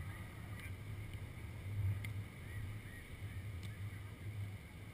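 Wind buffeting the microphone: a low, uneven rumble that swells and fades, with faint small ticks above it.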